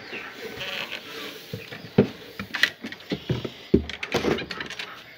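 A plastic tub of rice-husk bedding handled and tipped into a wooden cage: husks rustle, and the tub knocks sharply against the cage several times.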